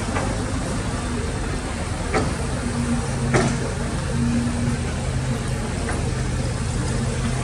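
Excavator's diesel engine running steadily, with two sharp metallic knocks a couple of seconds apart near the middle as the machine works.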